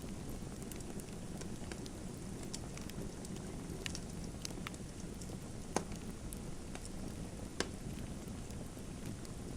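Fire crackling in a fireplace: a steady low rush of flame with scattered sharp snaps and pops, two louder pops in the second half.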